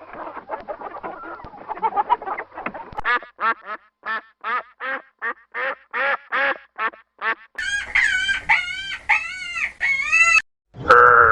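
Poultry calling: about three seconds of dense overlapping chatter from a flock, then a run of evenly spaced calls about two a second, then a brighter, higher run of arching calls. A loud, held call starts at the very end.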